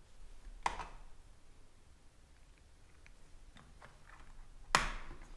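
Two sharp plastic clicks about four seconds apart, the second the louder, as a Nest Thermostat E is worked on and off its wall mounting base, with a few faint taps of handling between.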